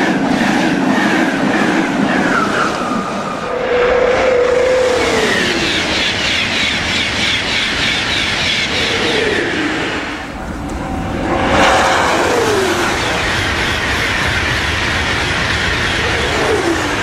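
High-speed electric passenger trains passing at speed: a loud, steady rush of wheels on rail and air. Several whining tones slide down in pitch as each train goes by.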